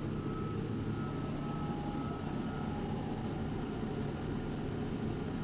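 Steady mechanical hum of running equipment, with faint thin high tones that come and go.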